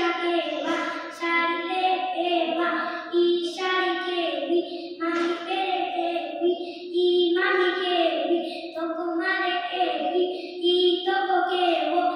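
A boy's voice reciting a Gujarati poem in a sing-song chant into a microphone, holding steady notes in short phrases with brief pauses between them.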